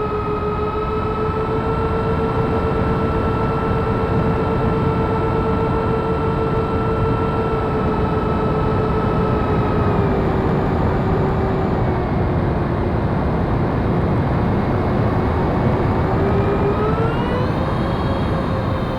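Twin 70mm six-blade electric ducted fans whining in flight over a steady rush of noise. The pitch holds, sinks slowly through the middle, then climbs sharply near the end.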